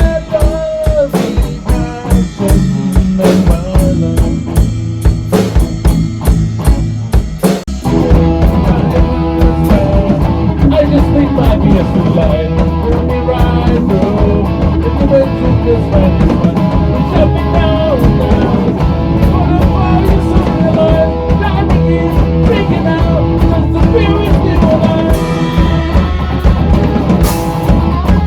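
A rock band playing an instrumental passage on drum kit, guitar and bass. Drums and bass carry the first part; about eight seconds in, the full band comes in louder and denser.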